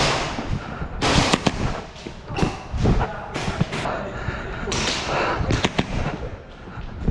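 Airsoft guns firing: a dozen or so sharp shots at irregular intervals, some single and some in quick pairs.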